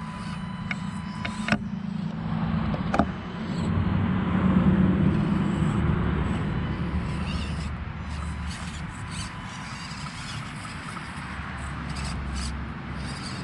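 Axial SCX24 micro RC crawler's small electric motor and gears whirring as it crawls over rocks, swelling about four to six seconds in, with two sharp clacks early on.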